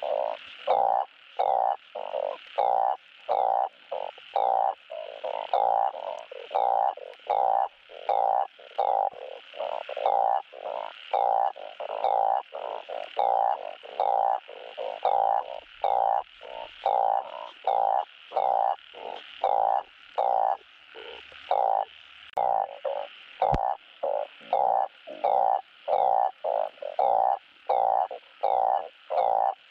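Blunt-headed burrowing frog (Glyphoglossus molossus) giving its mating call: a steady run of short, repeated croaks, about one and a half a second.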